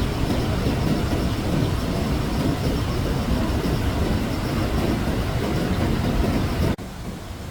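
Loud, steady roar of rushing floodwater with a deep rumble, cutting off suddenly near the end.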